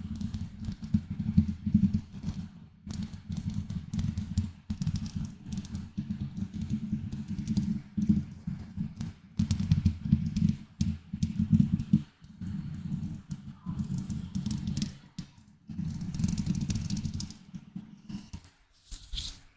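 Scratching directly on a microphone: a dense run of rapid, rough strokes with a heavy low rumble, pausing briefly a few times and thinning out near the end.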